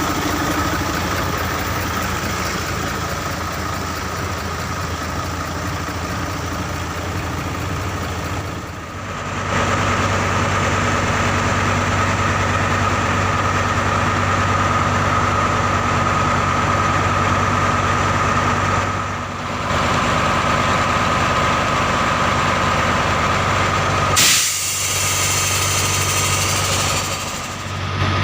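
Heavy diesel truck engine of a Mercedes-Benz Actros 4043 dump truck running steadily at low revs, with a loud hiss lasting about three seconds near the end.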